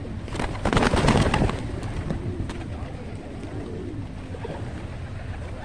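A dense flock of feral pigeons feeding and cooing, with a brief loud flurry of flapping wings about half a second to a second and a half in.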